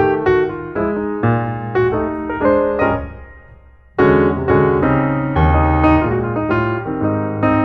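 Background piano music. It fades out in the middle and starts again abruptly about four seconds in.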